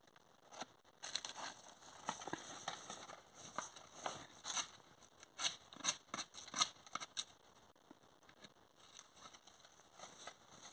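Hand bark-scoring tool scraping and cutting into pine bark in short, irregular strokes, opening a fresh resin-tapping streak on the trunk. Near the end, footsteps crunch through dry pine needles.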